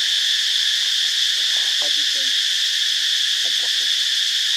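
Steady, unbroken insect chorus of crickets or cicadas, a high shrill hiss, with a few faint short calls or voices underneath.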